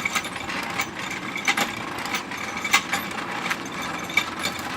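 About eight light, irregularly spaced knocks and clinks from blacksmithing hand tools striking metal, over a steady mechanical hum.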